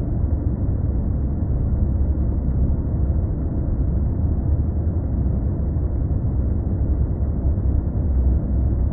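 A steady, unbroken low rumble with no distinct events.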